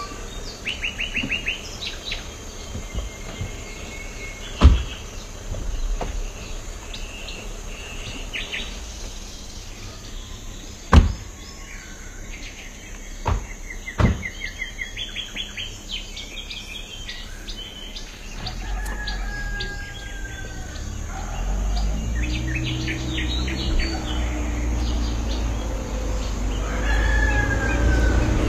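Farmyard birds chirping in short repeated trills, with a rooster crowing twice in the second half. Four sharp thuds from car doors shutting come in the first half, and a low rumble builds over the last ten seconds.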